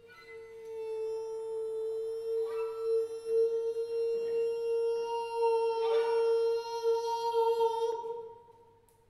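A man's voice holding one long, steady high note in free-improvised vocalising for about eight seconds, then fading away. Brief fainter sounds from the other players join about two and a half and six seconds in.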